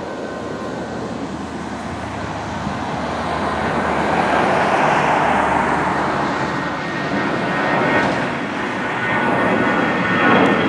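Airbus A320-214's twin CFM56 turbofan engines at climb power just after takeoff: a steady rushing jet noise with a faint whine above it, growing louder as the airliner climbs toward and over the listener.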